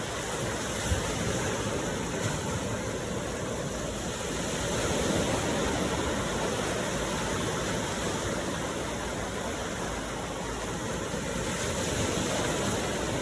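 Ocean surf: a steady rushing wash of water that swells slightly in the middle.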